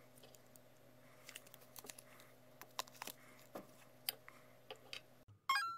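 Scattered light clicks and taps of a metal drill bit, brass pen tube and masking tape being handled, over a faint steady hum. Near the end, music starts with short pitched notes about twice a second.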